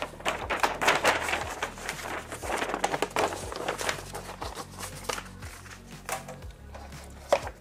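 Paper rustling and crinkling as folded sheets of printed paper are handled and turned over by hand, with irregular crackles throughout and one sharper, louder crinkle near the end.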